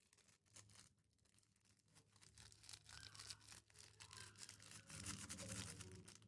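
Crunchy slime full of floam beads being squished and worked by hand: a faint, dense, fast crackling and popping that builds from about two seconds in and breaks off at the very end.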